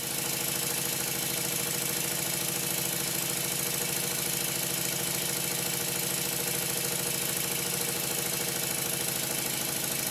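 Stuart Turner triple expansion model engine running steadily on its high-pressure cylinder alone: a fast, even exhaust beat with a strong hiss and the clatter of the valve gear. It fades in at the start.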